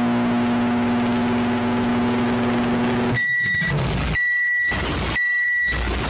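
Microwave oven running with a steady hum until about three seconds in, then sounding its end-of-cycle beep about once a second, three times.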